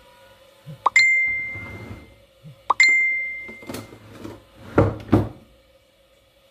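Two bright ringing dings about two seconds apart, each dying away over about a second, then two short duller knocks about half a second apart.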